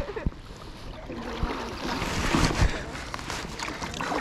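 Kayak paddles dipping and splashing in river water, with water swishing along an inflatable kayak's hull, growing louder about halfway through.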